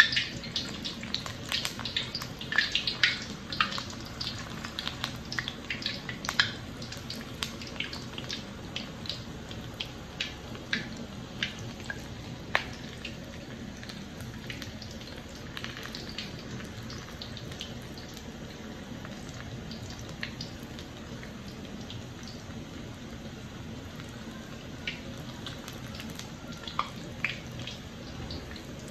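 Doughnuts deep-frying in hot oil in a wok: a steady sizzle with many crackling pops, densest in the first several seconds and thinning out later.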